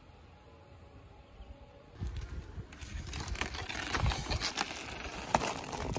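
Dry banana leaf sheaths crackling and rustling as a hand pulls them back from the trunk, starting about two seconds in, with some low bumps from handling.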